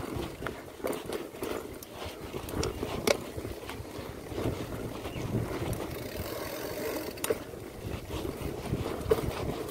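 Mountain bike riding down a dirt singletrack: tyres rolling over soil, with the bike rattling and a few sharp knocks over bumps.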